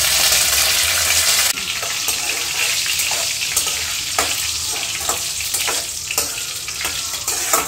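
Whole cumin seeds, kalonji, curry leaves and dried red chillies sizzling in hot oil for a baghar (tempering). The sizzle is loudest at first and drops a step about a second and a half in. A perforated steel spoon clicks and scrapes against the kadhai as the spices are stirred.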